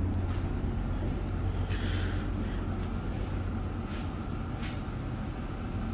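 Steady low hum of a ship's running machinery and ventilation heard inside the accommodation, with a brief rustle about two seconds in and a couple of faint knocks a little later.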